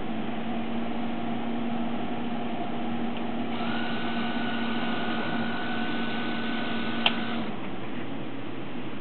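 Encoder-equipped DC servo motor under a MakerBot DC servo controller: a steady low hum, then a higher steady whine while the motor turns from about three and a half seconds in, which stops with a sharp click about seven seconds in.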